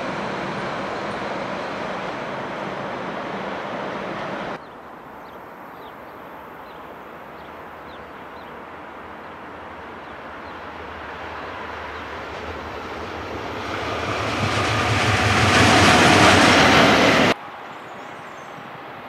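Swiss Re 4/4 electric locomotives with their trains running along the tracks, in three spliced recordings. First a steady rumble with a low hum, then, after an abrupt cut about four and a half seconds in, a second train's approach that swells to a loud rush of wheel and rail noise around fifteen seconds in, cut off suddenly a couple of seconds before the end by a much quieter scene.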